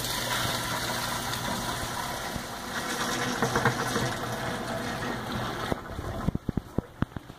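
Wet herbs and liquid poured from a plastic bucket into a mesh press bag in a stainless steel press basket: a steady rushing pour that stops about six seconds in. A few light knocks follow near the end.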